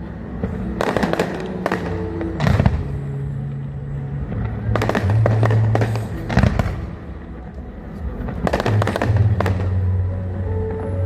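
Aerial fireworks going off in about six volleys of sharp bangs and crackle. Music with sustained low notes plays underneath.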